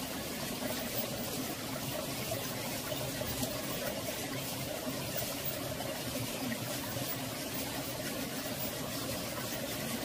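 Mountain valley stream flowing steadily, a continuous babble of running water.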